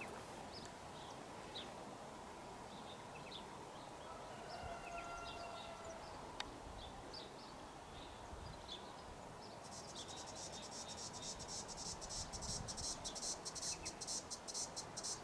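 Quiet outdoor background with a few faint short chirps; about ten seconds in, an insect starts a rapid, high-pitched pulsing trill that keeps going.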